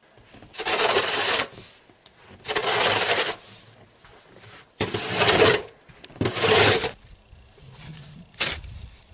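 Snow shovel scraping and pushing through snow, about five rough strokes a second or two apart.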